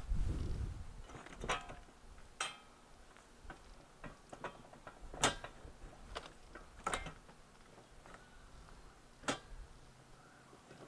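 Small sharp clicks and snaps from parts being worked loose from electronic circuit boards. About five separate clicks come a second or more apart, with a low rumble of handling in the first second or so.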